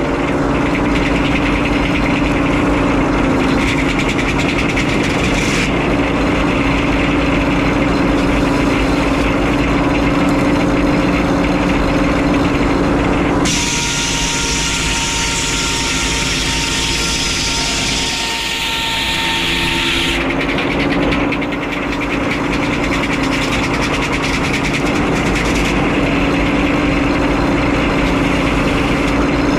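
Frick 01-C circular sawmill and its power unit running steadily. For several seconds about halfway through, the sound changes, with a higher whine over it, then settles back.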